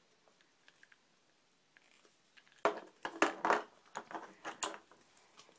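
Hard plastic Beyblade parts clicking and clacking as they are handled and set down on a plastic surface: a quick run of sharp clicks over about two seconds, starting about halfway in.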